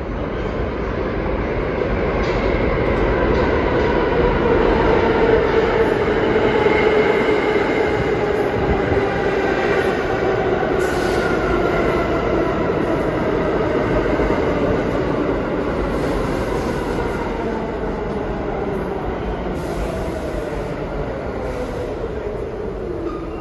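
R46 subway train pulling into an underground station, a steady rumble of wheels on the rails with a whine that falls slowly in pitch as the train slows. It is loudest about five to seven seconds in as the front cars pass, then eases off.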